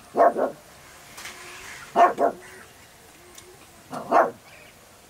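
Dog barking in three short bouts of two or three quick barks each, about two seconds apart.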